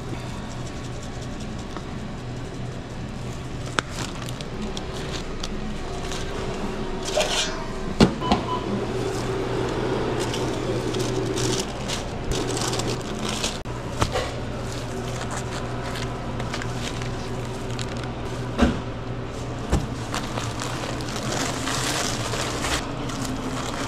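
Food-prep handling over a steady equipment hum: scattered knocks and clatter as the sub is handled at the toasting oven, the loudest about eight seconds in, then paper sandwich wrap rustling near the end.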